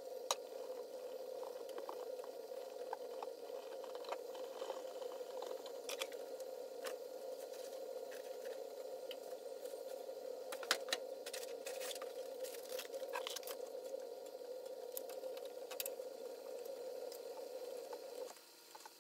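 Oil sizzling steadily in a frying pan on a gas burner, with scattered sharp clicks and scrapes, densest in a cluster about eleven to thirteen seconds in. The steady sound drops away suddenly near the end.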